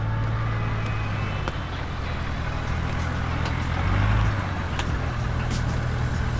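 Toyota 80 Series LandCruiser engine running low and steady as the truck crawls past through mud, swelling louder about four seconds in. Scattered sharp clicks and cracks come from under the tyres.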